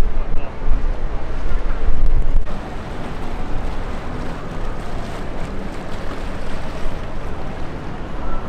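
Wind buffeting the microphone with a loud, gusty low rumble for about the first two and a half seconds, then dropping to a steady outdoor hubbub with faint voices.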